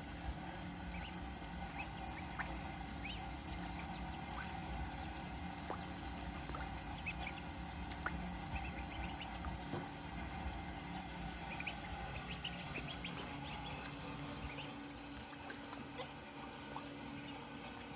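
Ducklings peeping in short high calls scattered throughout, with small splashes and drips of water as they dunk in a pool, over a steady low hum.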